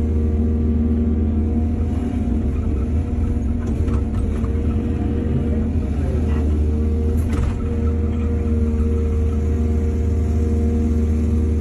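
Excavator's diesel engine running steadily, with a few faint knocks from the machine's work.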